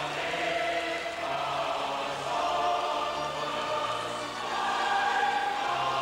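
A large audience and choir singing a slow song together in long held notes, many voices at once.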